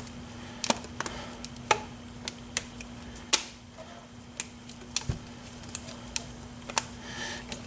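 Irregular small clicks and taps, a dozen or so, from a metal tool and rubber band being worked on a euro profile lock cylinder, the sharpest about three seconds in. A steady low hum runs underneath.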